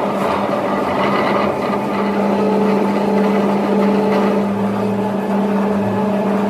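A workshop machine running steadily, a constant hum under a dense, noisy whir.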